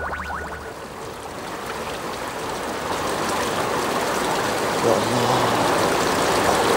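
Steady rush of running water. It builds up in the first couple of seconds as a music cue ends, then holds even.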